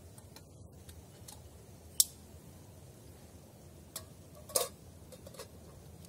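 A few sharp clicks and clinks of a steel camping pot and utensils being handled at a small gas stove, the loudest about two seconds in and a short cluster a couple of seconds later.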